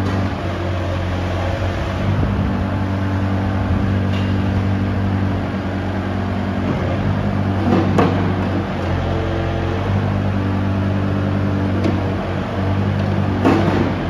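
Kubota KX165-5 midi excavator's diesel engine running steadily, its note shifting about seven seconds in as the hydraulics take load. Two clunks come through, one about eight seconds in and a cluster near the end.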